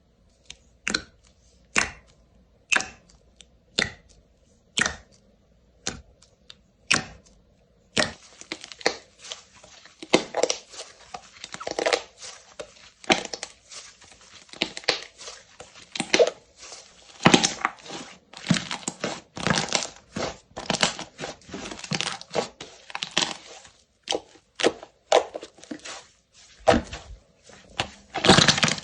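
Slime being squeezed and pressed by hand, making crisp crackling pops. For the first several seconds the pops come about once a second; after that they run together into dense, continuous crackling and popping.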